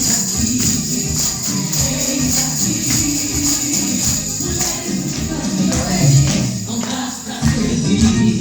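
A Christian song playing, with tambourine jingles shaken in a regular rhythm over the music.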